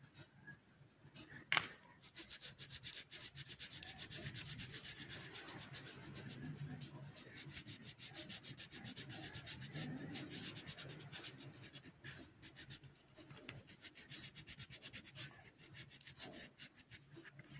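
Colored pencil rubbing back and forth on paper in quick, even strokes, laying a layer of colour over the streaky pencil marks. A single sharp tap comes about one and a half seconds in, before the strokes start.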